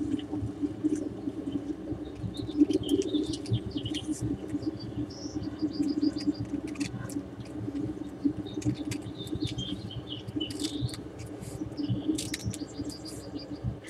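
Birds chirping, with short high calls and quick runs of repeated notes, over a steady low hum.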